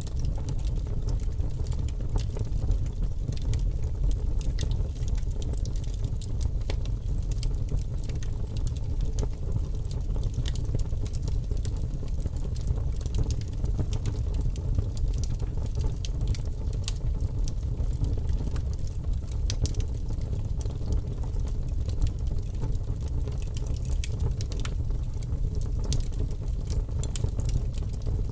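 Wood fire burning with large flames: a steady low rumble of the flames with many scattered sharp crackles and pops from the burning wood.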